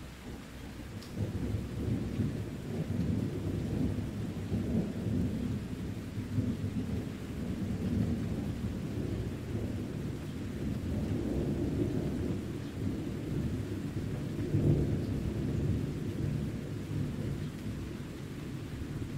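Deep rumbling thunder from an alpine thunderstorm, building about a second in and swelling several times, with steady rain beneath it.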